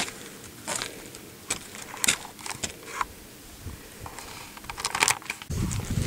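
Light scattered clicks and rustles of handling, then a low rumbling noise of wind on the microphone that starts suddenly about five and a half seconds in.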